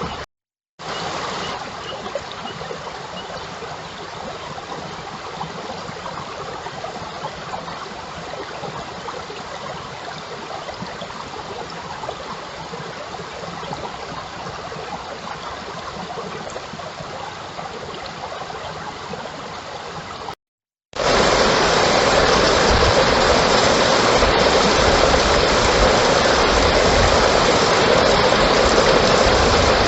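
Steady rushing noise of running water, broken by a short dropout about a second in. After a brief gap about two-thirds through it comes back louder and fuller.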